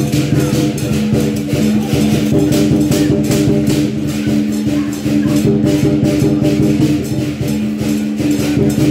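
Music: long sustained low tones over a steady percussion beat.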